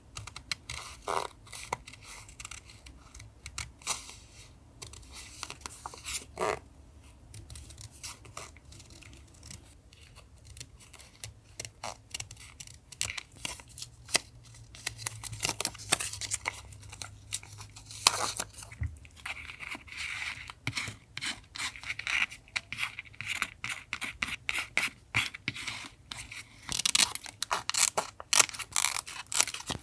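Close-up paper-crafting sounds: paper being handled, cut and torn in a quick, uneven run of crisp clicks, snips and rustles. The run grows busier in the second half.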